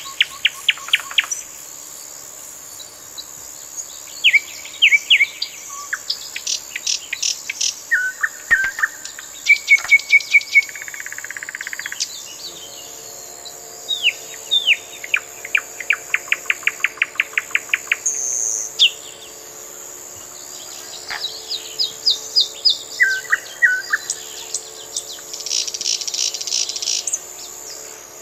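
Small birds chirping and singing, with quick trills of repeated notes and short falling calls, over a steady high-pitched drone.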